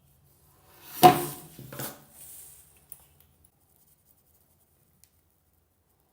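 Plumbing parts being handled: a sharp metallic clink about a second in with a brief ring, a second smaller clatter just after, then a short rustle and a few light ticks.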